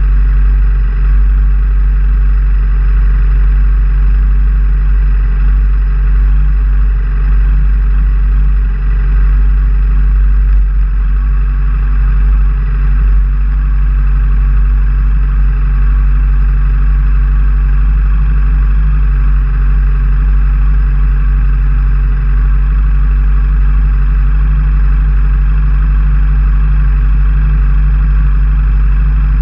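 Racing sidecar outfit's engine idling steadily: a loud, unchanging low rumble with no revving.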